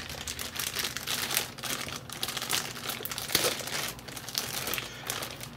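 Clear plastic bag crinkling and crackling as hands pull a radio transmitter out of it.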